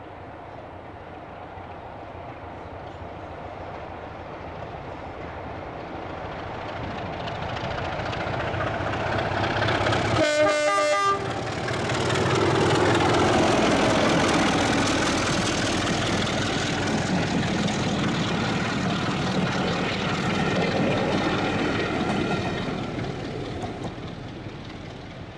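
BR Class 33 'Crompton' diesel locomotive approaching and passing under power, its Sulzer eight-cylinder engine growing steadily louder, with a short horn blast about ten seconds in. The engine note drops in pitch as it goes by, and the train's running noise fades near the end.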